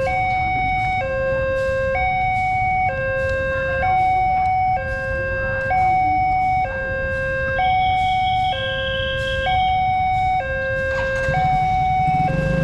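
Railway level-crossing warning alarm sounding its two-tone signal, a lower and a higher tone swapping back and forth about once a second, which signals that the crossing gates are closed for a train. A low engine hum joins near the end.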